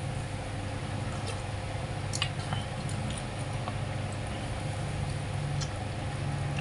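Steady mechanical room hum, with a few faint light clicks and taps scattered through it.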